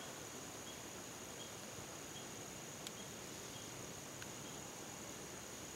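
Insects such as crickets droning steadily in one high pitch, with fainter short chirps repeating roughly every three-quarters of a second. Two tiny clicks near the middle.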